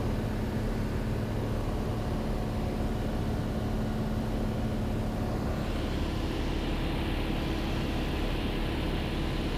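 Cessna 182 single-engine piston aircraft droning steadily in cruise, engine and propeller heard from inside the cabin. A brighter rushing hiss of air comes in about six seconds in.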